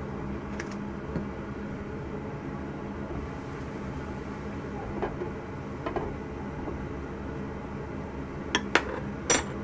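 Metal clinks of a frying pan and its lid on a gas hob: light clinks about halfway through, then a few sharp clinks near the end. A steady low hum runs underneath.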